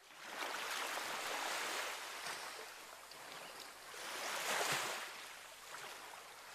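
Sea waves washing onto a shore, a steady surf hiss that swells twice, once near the start and again about two-thirds of the way through.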